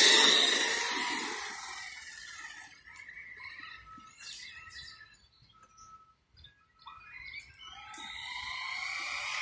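Traxxas Stampede RC truck's electric motor and drivetrain whining: loud at first and dropping in pitch as the truck runs off into the distance, then rising in pitch and level again near the end as it speeds back. Faint bird chirps come through in the quiet middle.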